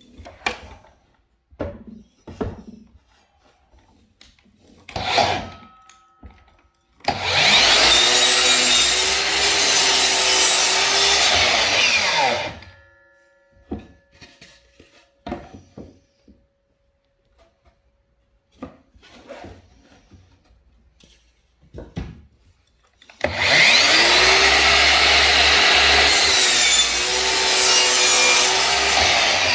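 Makita DLS111 36V cordless sliding miter saw cutting through wood twice, each cut about five to six seconds long, the motor rising in pitch as it spins up and falling as it winds down. Between the cuts there are scattered clicks and knocks of handling.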